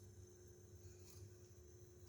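Near silence: faint room tone with a low steady hum and a faint click about a second in.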